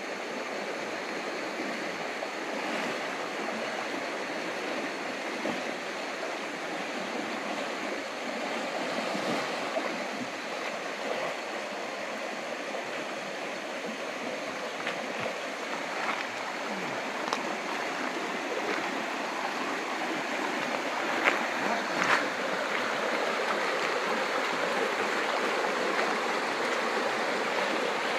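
Shallow river water rushing and rippling over a stony bed, a steady sound throughout. A few sharp knocks stand out about three-quarters of the way through.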